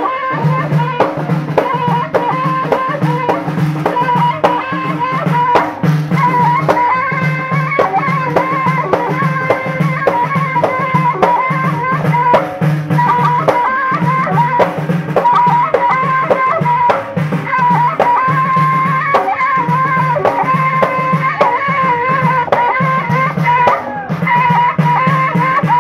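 Reggada folk music: bendir frame drums beating a steady rhythm, about one and a half strokes a second, under a sustained, wavering high melody line.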